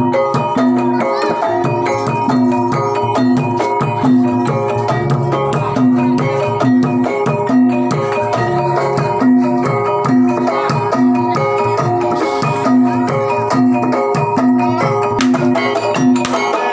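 Gamelan music: bronze metallophones and gongs play a steady, dense rhythmic pattern, with one low note struck over and over at an even pace.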